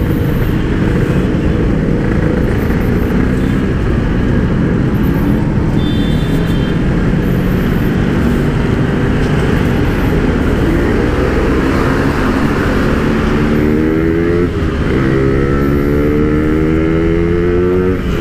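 Two-stroke single-cylinder Yamaha RX-King motorcycle engine running through a PK1 aftermarket exhaust while the bike is ridden, over wind noise. About ten seconds in, the engine pitch rises steadily as the bike accelerates. It drops briefly, then rises again near the end.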